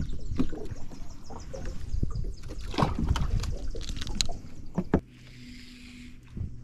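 Knocks, clicks and rustling of fishing gear being handled on a bass boat's deck: a fish lip-grip on a bead chain and a baitcasting rod and reel. The handling stops after about five seconds, leaving a steady low hum.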